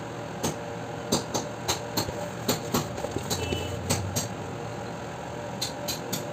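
Irregular sharp knocks and taps, about a dozen, over a steady low hum: the noise of building work going on in the house.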